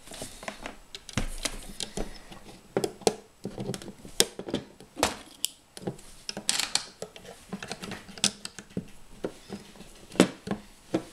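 Plastic LEGO bricks clicking and clattering as loose pieces are picked up, put down and pressed onto a model, in an uneven run of sharp taps. The sharpest click comes near the end, as a plate is pressed into place.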